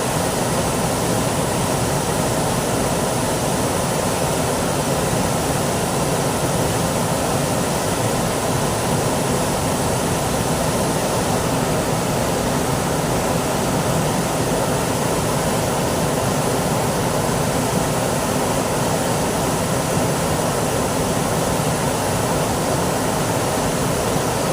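Flowing water rushing steadily, an even, unbroken wash of sound.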